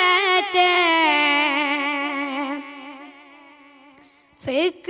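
A boy's voice singing a devotional manqabat a cappella. He draws out the last word of a line as one long note that slowly sinks in pitch and fades away. A short sliding vocal sound comes near the end.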